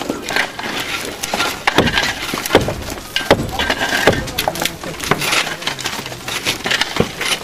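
Irregular knocks and cracks of a hand tool striking earth and wood, about half a dozen sharper strikes spaced unevenly.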